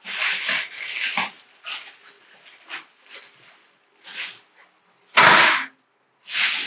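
Clear plastic bag crinkling and rustling in irregular bursts as it is pulled off a stand mixer, with one short, much louder burst of noise about five seconds in.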